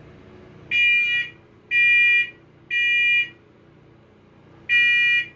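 First Alert SA511 wireless smoke alarm sounding in test mode: three loud, high-pitched beeps about a second apart, a pause, then the next beep of the cycle near the end. This is the temporal-three evacuation pattern.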